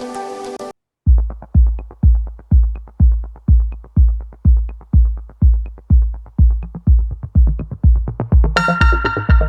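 Electronic background music: a held synth chord cuts off under a second in, then a steady kick-drum beat comes in at about two beats a second, with synth chords joining near the end.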